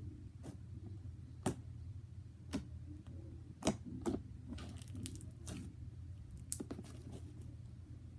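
Blue slime being kneaded and squished by hand, letting out sharp clicks and pops every second or so as air pockets burst, with a quick run of crackles about five seconds in.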